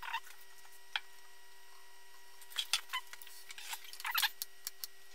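Light handling noise on the metal chassis and circuit boards of an opened HP 3438A multimeter, from hands and small tools: a couple of short clicks, then a run of brief scrapes and rubs from about halfway through, over a faint steady hum.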